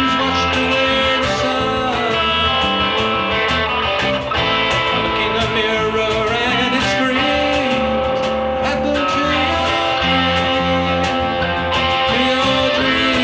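A band playing a song live, led by guitar, with drums keeping a steady beat.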